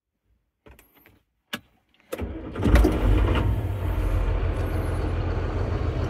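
A few light clicks, then an engine is cranked and starts about two seconds in, catching with a surge and settling into a steady run with a strong low hum.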